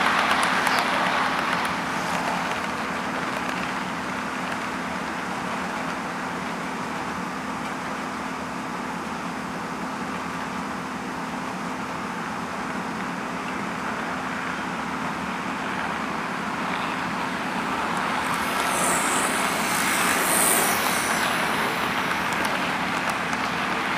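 HO scale model train running on the layout track, a steady rolling whir that dips a little in the middle and swells again near the end with an added high hiss.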